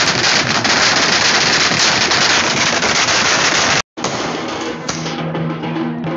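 Firecrackers going off on the ground in a dense, continuous crackle of rapid pops. The crackle cuts off suddenly a little before four seconds in, and music with held low notes follows, with fainter crackling over it.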